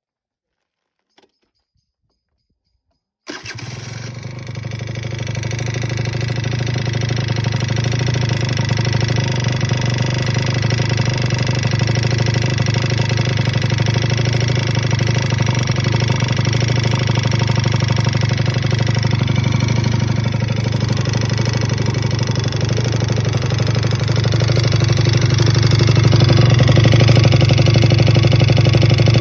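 Two-stroke moped engine with an Airsal 70cc big-bore kit starting suddenly about three seconds in, then running steadily and a little louder near the end. Its owner finds the noise it makes strange.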